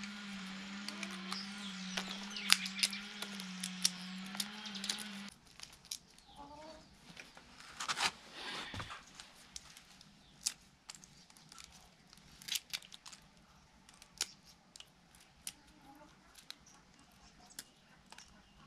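Brittle tamarind pod shells cracking and snapping as they are peeled by hand, a scatter of sharp clicks. A steady hum runs under the first five seconds and cuts off abruptly, and chickens cluck now and then.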